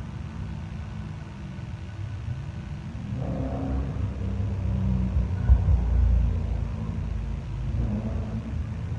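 A low rumble that swells through the middle and eases off again, with one sharp low thump about five and a half seconds in.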